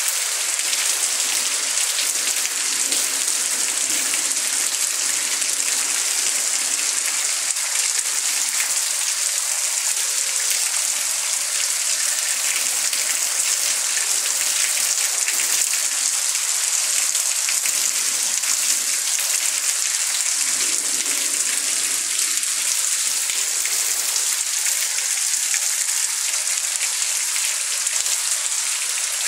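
Heavy rain pouring down steadily, a dense, even hiss that does not let up.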